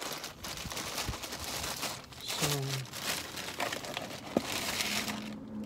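Thin plastic shopping bag rustling and crinkling as it is handled and lifted, with a short murmur from a voice about two and a half seconds in; the rustling dies down near the end.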